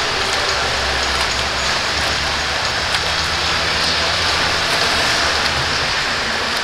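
Indoor competition pool: a steady wash of splashing water echoing around the pool hall, with a low steady hum underneath.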